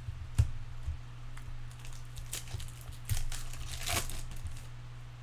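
Baseball trading cards being handled and flipped through: cards sliding and crinkling against each other, with a sharp tap about half a second in and short rustles later, the longest about four seconds in.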